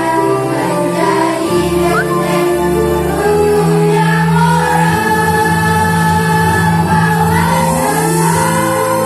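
Student choir singing a school hymn, the voices holding long sustained chords.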